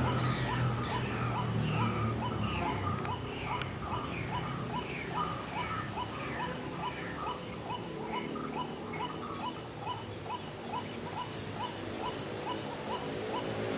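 White-breasted waterhen calls: a steady run of short, clipped notes, about three a second. A second, higher series of falling notes runs alongside and fades out past the middle.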